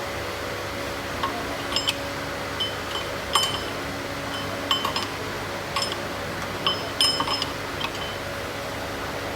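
Light metallic clinks and taps of tools and engine parts being handled, scattered irregularly with short ringing tones, over a steady background hum.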